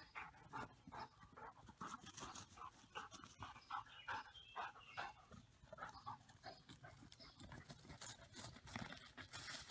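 Small dog giving faint, short yips over and over, two or three a second.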